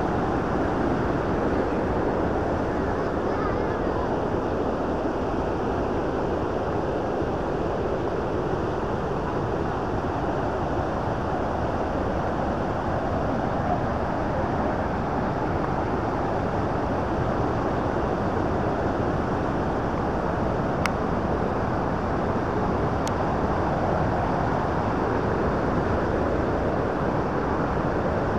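Steady rush of fast-flowing river water from the Bow River's rapids above Bow Falls, a dense, even roar that does not let up.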